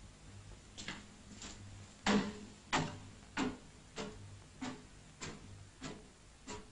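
Evenly spaced sharp ticks or knocks, about three every two seconds, starting about a second in; the strongest comes about two seconds in.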